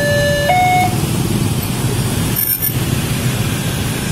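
Railway level-crossing warning alarm sounding two alternating electronic tones, cutting off about a second in as the crossing reopens. After that comes the steady noise of motorcycles and other road traffic moving over the crossing.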